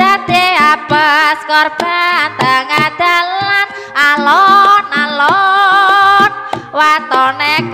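Javanese gending music in Ponorogo style: a wavering, ornamented lead melody with strong vibrato over quick kendang drum strokes.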